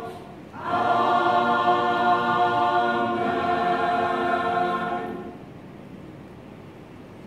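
Church choir of mixed men's and women's voices singing the hymn's closing chord, a brief break and then one long held chord that ends about five seconds in.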